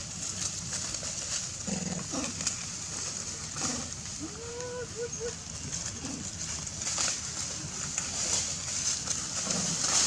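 Macaques moving through dry leaf litter, with scattered rustles over a steady high-pitched hiss, and a quick run of four or five short calls about four to five seconds in.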